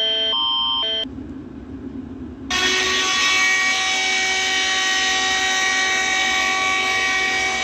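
Emergency alert alarm tones. An alternating two-note beeping runs until about a second in and stops. After a short hush, a steady, loud blare of several held tones at once starts about two and a half seconds in.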